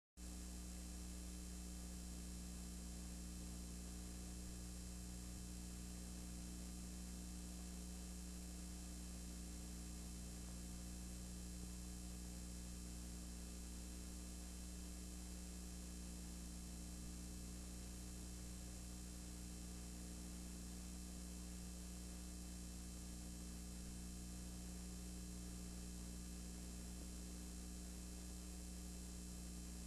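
Steady low electrical hum with a layer of hiss over it; nothing else happens.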